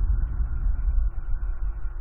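Wind buffeting the nest camera's microphone: a gusty low rumble that rises and falls.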